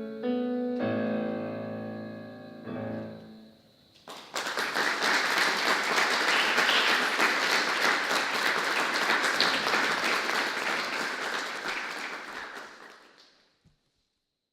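Piano playing a few final chords that ring out and die away. Audience applause then breaks out suddenly, holds, and fades out near the end.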